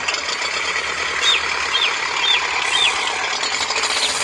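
Small electric motor and gearbox of a homemade mini toy tractor running steadily under load as it tows another toy tractor on a chain.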